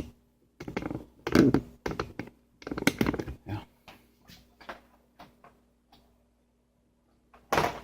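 A run of irregular knocks, taps and clicks as the printer's back inside panel and its screws are handled and pushed into place. It goes quiet for about a second and a half near the end.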